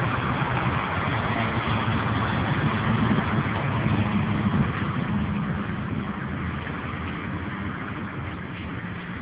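A car engine running with a steady low note, growing fainter over the second half.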